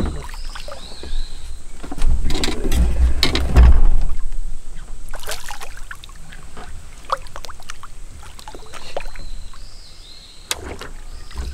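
A hooked largemouth bass splashing and thrashing at the water surface beside a boat, with the heaviest splashing about two to four seconds in and a few single sharp splashes later.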